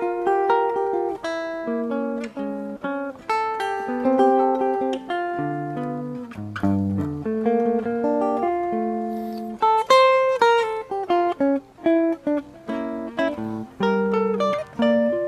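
Solo jazz guitar playing cluster chord voicings, chords built on close seconds: a string of plucked chords changing about every half second to a second, each left to ring and decay.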